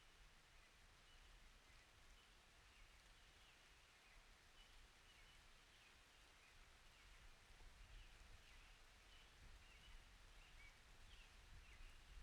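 Near silence: faint room tone with faint, short, high chirps throughout.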